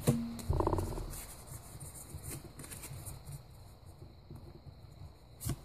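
Quiet handling of trading cards from a freshly opened booster pack as they are shuffled and sorted in the hands. A brief low hum from a voice comes about half a second in, and there is a sharp click near the end.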